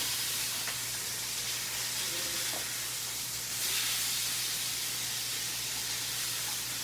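Steady sizzling hiss of food frying in a pan, swelling slightly a little past the middle.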